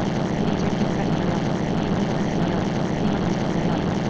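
A steady, unchanging droning noise with a low hum, the continuous background bed of a subliminal audio track.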